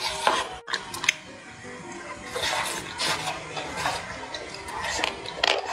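Close-miked wet chewing and smacking of soft, fatty braised pork belly, in a run of short squelchy mouthfuls over soft background music.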